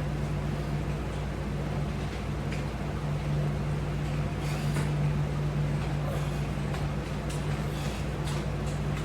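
Steady low hum, with a few faint ticks and rustles scattered through it.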